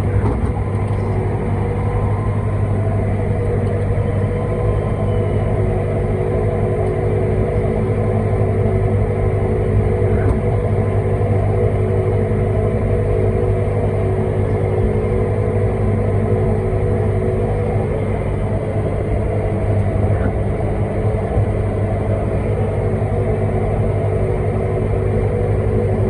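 Tractor engine running at a steady working speed while pulling a fertiliser spreader, a constant low drone that holds unchanged throughout.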